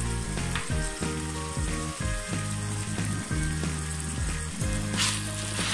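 Cubed chicken and chopped garlic sizzling in hot oil in a pan, with background music playing over it.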